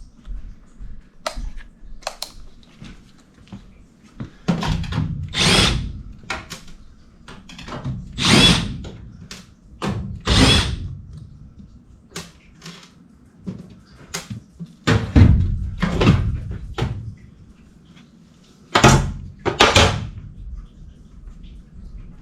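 Cordless driver spinning out sheet-metal screws in a series of short bursts, several seconds apart, as the evaporator coil cabinet panel is taken off.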